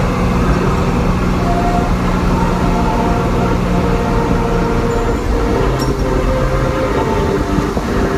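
Tractor engine running steadily, heard from inside the cab as a loud, constant drone. Its note drops slightly about five seconds in, and there is a short click near six seconds.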